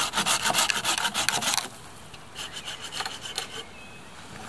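Hand saw cutting through a bone-dry, dead ash branch in quick back-and-forth strokes. The sawing stops a little under two seconds in.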